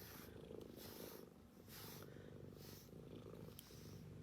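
Domestic cat purring steadily in a low rumble that swells and eases with each breath, a contented purr as he is being brushed.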